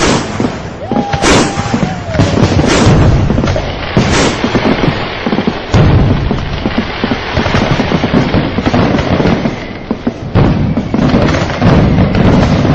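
Fireworks going off in a dense barrage: overlapping booms and sharp bangs with crackle between them. About a second in comes a short steady whistle that drops in pitch at its end.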